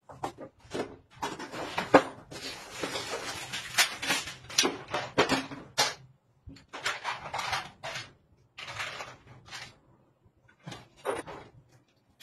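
Metal TV wall-mount bracket parts and a plastic tray of screws being unpacked from their box and set down on a tile floor: a run of clattering knocks, clicks and rattles, with short stretches of scraping and a couple of brief pauses.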